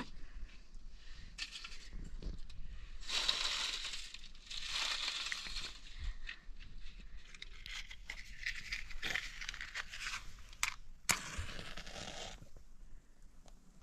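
Dry leaves and twigs crunching and rustling in several bursts as they are crumpled and piled into a stone fire hearth. Near the end, a match is struck with a sharp scrape and flares briefly.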